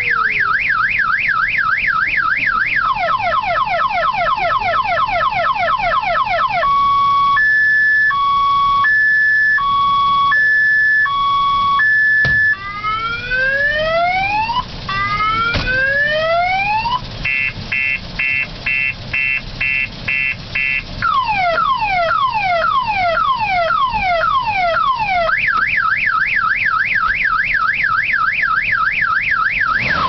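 Multi-tone car alarm siren cycling through its sounds: a fast warble, then a run of falling whoops, a two-tone high-low, slow rising sweeps, rapid beeping, falling whoops again, and back to the fast warble.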